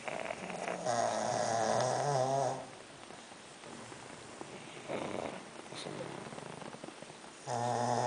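Sleeping pug dogs snoring: a long, loud, wavering snore about a second in, a softer snoring breath in the middle, and another loud snore starting near the end.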